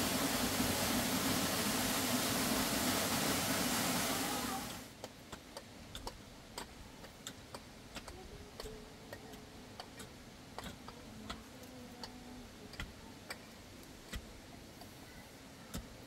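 Steady rushing noise that cuts off abruptly about four and a half seconds in, giving way to a quiet background with irregular sharp clicks, a few every second.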